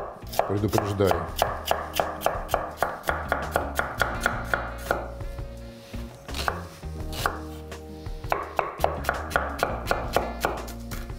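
A chef's knife chopping carrots and then onion on a wooden cutting board: a quick, even run of knife strikes, about four a second, with a short break near the middle.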